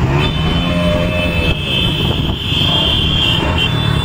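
Many motorcycle engines running together at low speed in a slow-moving column, with a steady high-pitched tone above them from about a quarter second in.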